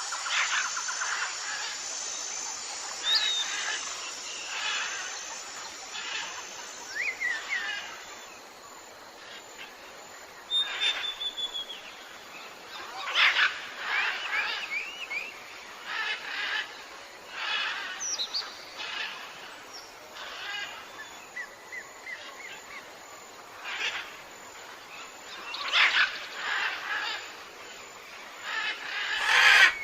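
Birds calling outdoors: short chirps and brief whistled notes, some rising or falling in pitch, come every second or two over a light background hiss.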